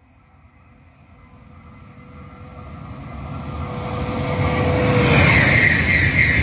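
Renfe AVE S100 high-speed electric train approaching and passing at speed: a rushing sound that grows steadily louder, with a steady whine that stops about five seconds in as the train reaches the microphone and a loud rush of wheel and air noise takes over.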